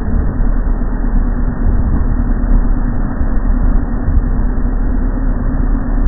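Motorboat engine running steadily at speed, mixed with water rushing and a deep rumble of wind on the microphone.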